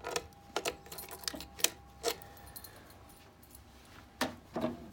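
A bunch of keys jangling and clicking as a key is worked in a lock, with several sharp clicks in the first two seconds, then quieter, with a faint steady tone behind. The key is being turned to give the fire alarm panel its power again.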